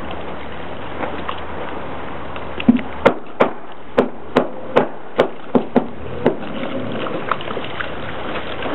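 A quick run of about ten sharp knocks over a few seconds, about three a second, as the boat's hull bumps against the drive-on boat lift. A low steady rumble sits under it and drops away while the knocks sound.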